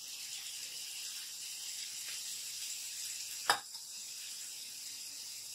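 Spaghetti and chopped vegetables sizzling steadily in hot oil in a kadhai as they are stir-fried. One sharp knock comes about three and a half seconds in.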